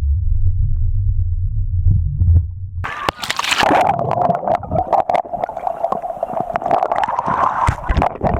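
Muffled low rumble and gurgle of water as heard by a waterproof camera underwater. About three seconds in, the sound abruptly opens up into splashing water and wind noise on the microphone.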